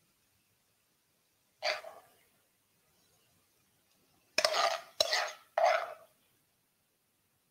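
A spoon scraping and clinking against a frying pan as snails in garlic butter are scooped out: one scrape about two seconds in, then three quick ones in a row near the end.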